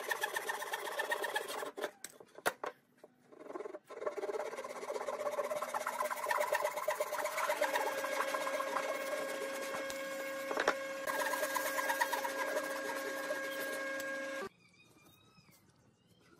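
Japanese-style hand saw cross-cutting a wooden board in quick back-and-forth strokes, about four a second, the thin blade ringing steadily. The strokes break off briefly after about two seconds with a couple of knocks, then resume. They stop abruptly near the end, leaving only faint scratching of a pen marking the wood.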